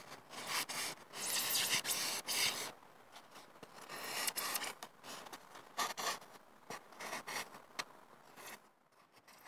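Blades cutting through foam: a hacksaw blade and then a knife scraping and slicing the tabs off a foam model airframe. A long stretch of scraping strokes comes first, then shorter, quieter cuts.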